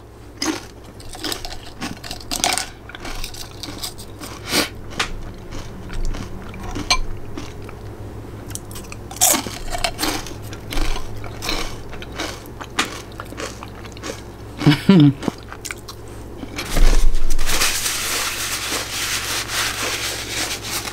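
A person biting and chewing crunchy food close to the microphone, with many short sharp crunches throughout. About three quarters of the way through, a louder stretch of steady noise takes over.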